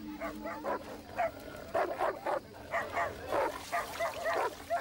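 Dogs barking in a rapid, uneven run of short barks, about three or four a second, as they confront a cobra.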